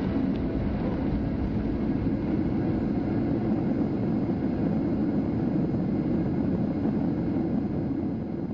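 Steady low rumble of an airliner's cabin noise: engine and airflow noise heard from inside the passenger cabin.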